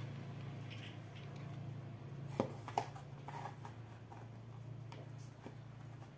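A few light clicks and knocks as a plastic food container is handled and its lid worked open, two sharper clicks about two and a half seconds in, over a steady low hum.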